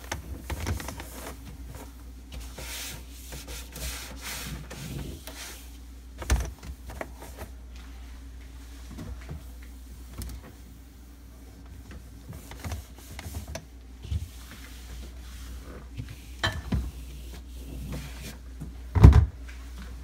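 A cloth wiping the glass shelves inside a refrigerator: intermittent rubbing and scraping, with a few knocks as the shelves and fittings are handled, the loudest about a second before the end, over a steady low hum.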